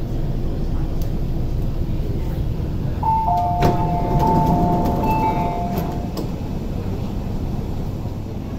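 Interior running noise of an MTR SP1900 (IKK) electric train decelerating to a stop at a platform: a steady low rumble. From about three to six seconds in there is a sustained two-note squeal, with a sharp click about midway through it.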